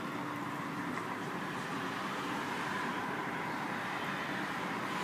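Steady drone of distant engine noise, with a faint, slightly wavering tone.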